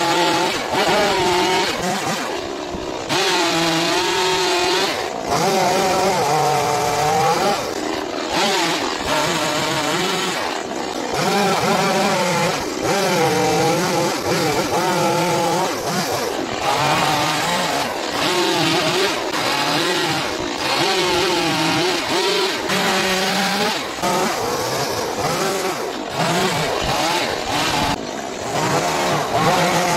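Stihl chainsaw engine revving up and down again and again as the chain cuts into a wooden log, dropping back briefly between cuts.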